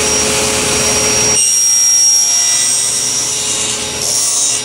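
Table saw running, its blade cutting a tooth notch into a wooden gear blank that is pushed down into the spinning blade. About a second and a half in, the low hum drops away abruptly, leaving a steady high whine, with a brighter hiss near the end.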